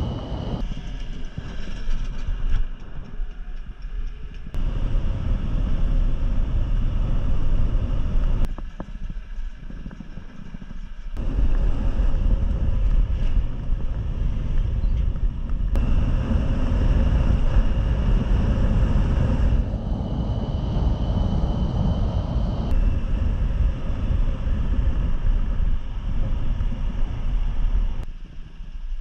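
Wind buffeting the microphone of a motor scooter riding at road speed, over a steady rumble of engine and tyres and a faint high whine. The sound jumps abruptly in level and character several times.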